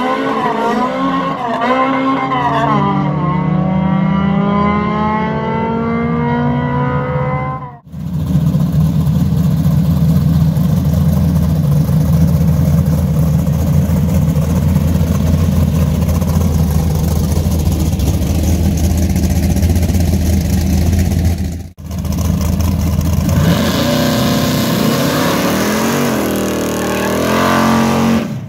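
Drag race cars' engines revving and accelerating hard, with engine pitch rising over the first several seconds. A long stretch of heavy engine noise follows, then more revving near the end, with abrupt cuts about 8 and 22 seconds in.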